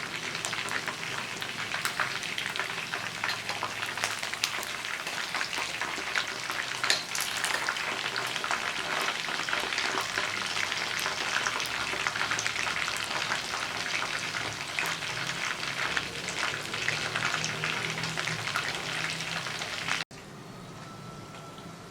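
Chicken wings frying in a hot pan: steady sizzling with many sharp crackling pops. The sizzle cuts off suddenly near the end.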